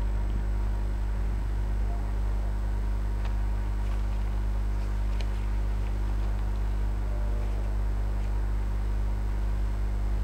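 Steady electrical mains hum with a low buzz and background hiss, with a few faint ticks scattered through it.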